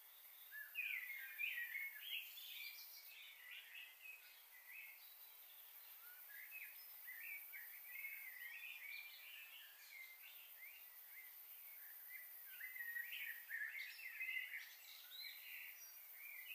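Small birds chirping and twittering in quick, faint bursts over a steady high hiss, busiest about a second in and again near the end.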